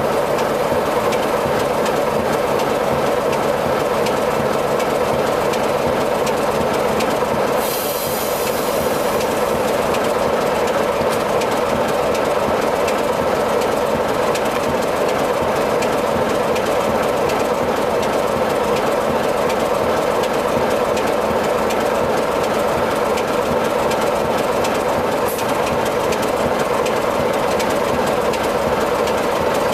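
Class 33 (BRCW Type 3) diesel-electric locomotive standing with its Sulzer eight-cylinder diesel engine idling steadily. A short burst of hiss comes about eight seconds in, and a fainter one near the end.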